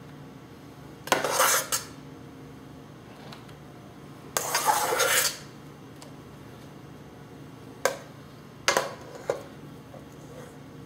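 Spatula scraping chocolate frosting out of a mixing bowl, twice, with a few short clinks of the spatula against the bowl near the end.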